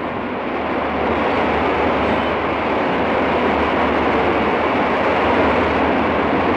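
A loud, steady rushing rumble with no clear pitch, rising slightly in level partway through.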